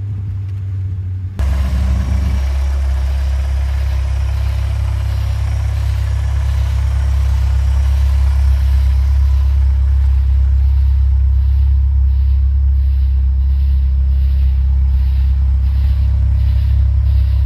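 Turbocharged 2.2-litre four-cylinder engine in a 1989 Chrysler LeBaron GTC running as the car is driven, a deep steady drone with a noisy hiss above it. The sound jumps louder about a second and a half in, then holds steady.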